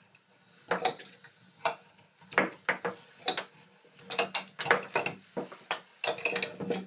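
Strap wrench turning a corroded threaded metal tub spout off its pipe: a string of irregular clicks and clinks as the wrench handle is repositioned and the spout knocks and turns on its threads.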